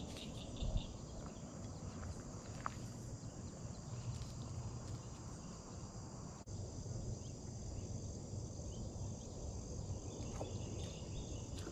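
Steady chorus of insects chirring in a swamp, a high continuous buzz with a pulsing high trill joining about halfway through.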